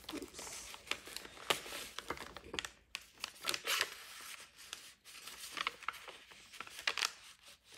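Thick paper rustling and scraping as a journaling card is slid out of a paper page pocket in a handmade journal and tucked back in, with a few sharper crackles.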